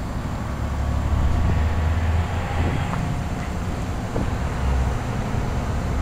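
Rheem Classic 10 SEER central air-conditioner condensing unit running: a steady low hum from its Copeland scroll compressor under the even rush of the condenser fan.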